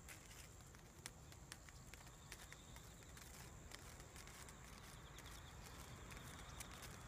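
Near silence: faint outdoor ambience with a low rumble, a faint steady high whine, and scattered soft clicks.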